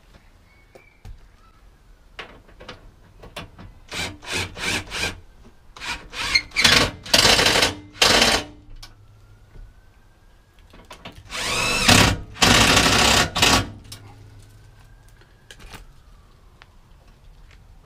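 Cordless drill-driver spinning up in a series of short bursts, then several longer runs, as it drives the seat-base bolts home.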